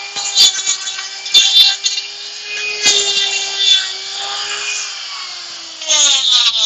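Makita die grinder with a Kutzall Extreme flame burr carving wood: a steady motor whine under bursts of rough grinding as the burr bites in. Near the end the whine drops in pitch as the motor slows.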